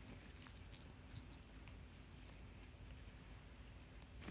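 Two cats tussling on a rug and cloth: faint rustling with small scattered clicks, busiest in the first second or so and sparse after that.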